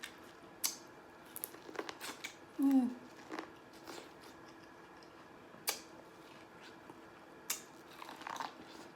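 Close-miked eating of seafood-boil corn on the cob: a string of sharp, wet mouth clicks and smacks from biting and chewing, spaced irregularly a second or so apart.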